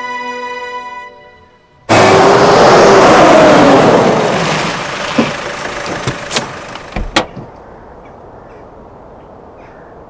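Soft background music fades out. About two seconds in, a loud rushing noise starts suddenly and dies away over the next few seconds, followed by a handful of knocks and thuds, then a steady low outdoor background.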